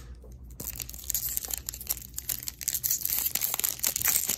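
Plastic wrapper of a baseball card pack being torn open and crinkled, with the stack of cards inside handled: a dense run of crackles and rustles starting about half a second in.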